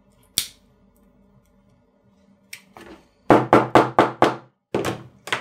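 Shoemaker's hammer striking the back seam of a leather upper: a quick run of about five taps, then two more near the end. A single sharp click comes about half a second in.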